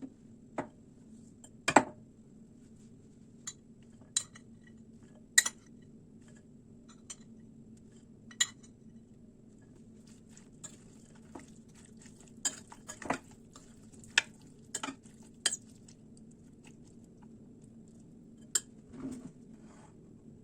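Kitchen utensils and dishes clinking and knocking at irregular intervals, as in handling or stirring in a kitchen, over a faint steady hum.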